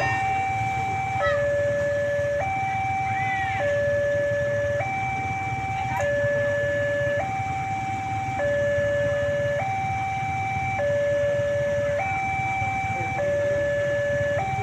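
Railway level crossing's electronic warning siren sounding a two-tone hi-lo alarm: a higher and a lower note swap about every second and a bit, warning that a train is approaching. A steady low rumble runs underneath.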